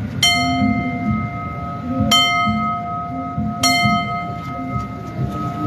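A metal signal bell struck three times, about two and then one and a half seconds apart, each stroke ringing on, over low background crowd noise. It is the kind of bell struck at the anda to signal its carriers.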